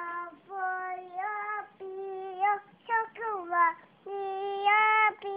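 A toddler singing in a high voice, drawn-out sung syllables with short pitch slides between them. The longest and loudest note is held for about a second near the end.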